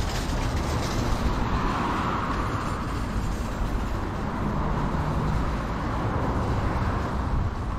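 Steady city road-traffic noise, with a vehicle passing about two seconds in.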